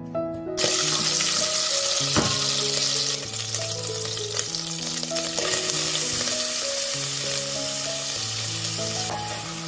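Butter sizzling in hot olive oil in a stainless steel pot, starting suddenly about half a second in as the butter hits the oil and then settling into a steady frying hiss as chopped onion is added.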